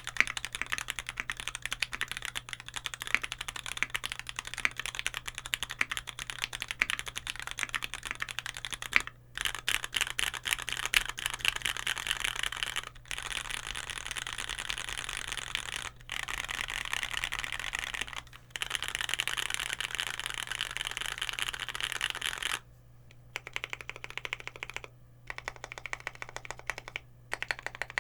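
Continuous fast typing on a Keycult No.2 gasket-mounted aluminium custom keyboard with lubed vintage Cherry MX Nixie switches and GMK keycaps: a dense run of keystrokes broken by a few brief pauses. Near the end the typing thins out to slower, separate keystrokes.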